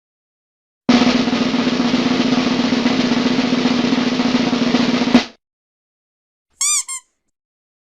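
Snare drum roll lasting about four seconds, ending abruptly. About a second later comes a short, high two-note chirp.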